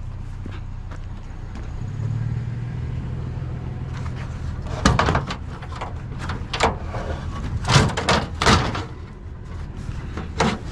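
A vehicle engine running with a steady low hum that gets slightly louder about two seconds in. From about five seconds in come a series of sharp clanks and bangs, like metal scrap or a vehicle door being knocked about.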